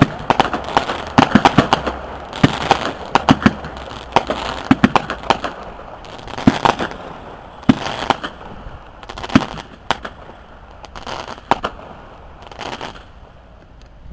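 Aerial fireworks bursting with sharp bangs and crackle, many close together at first. After about six seconds they thin out to scattered single bangs, then die away near the end as the display finishes.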